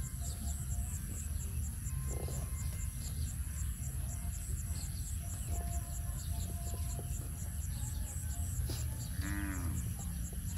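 A cow moos once near the end, a short call that drops slightly in pitch. Under it runs a steady low rumble, with faint rhythmic insect chirping.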